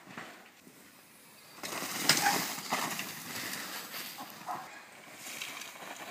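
Downhill mountain bike coming down a snowy trail: tyres rolling and skidding over snow and dirt, rising sharply about a second and a half in, with a sharp knock about two seconds in and rattling as it comes closer.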